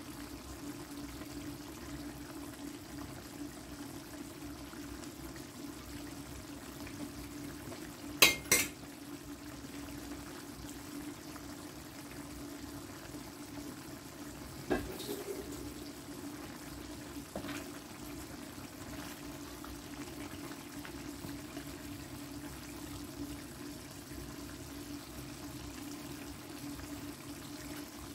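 Curry chicken simmering in an electric pot, the sauce bubbling steadily over a low steady hum. Two sharp knocks come about eight seconds in, and a lighter one a few seconds later.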